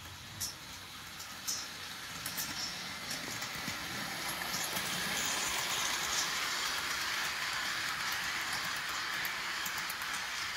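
HO scale model train hauling Athearn Maxi-I well cars rolling along sectional track, a rolling noise that grows louder over the first five seconds as the cars come near and pass, then holds steady. A few sharp clicks sound in the first seconds.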